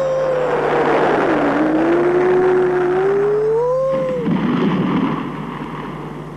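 Cartoon sound effect: a whistling tone over a rushing noise. The tone slides down, dips and swoops back up, then cuts off about four seconds in, and the rushing fades away near the end.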